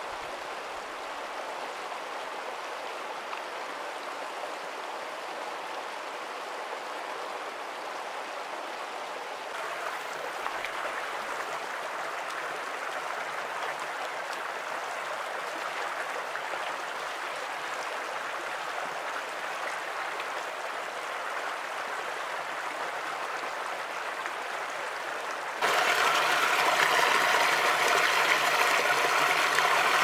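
Shallow creek water running over rocks in a steady rush. It grows a little louder about ten seconds in, and much louder near the end, where a small stream of water pours between two boulders into a foaming pool.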